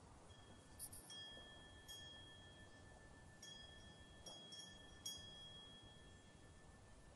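Faint wind chimes: about seven light metallic strikes at irregular moments, with two clear tones ringing on between them.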